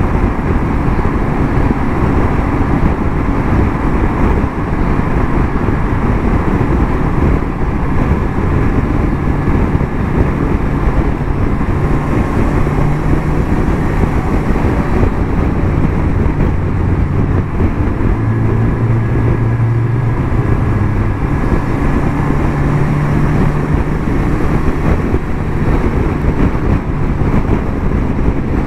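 Kawasaki Versys 1000 S inline-four engine running at road speed, its note shifting a little in pitch a few times, under a steady rush of wind and road noise on the microphone.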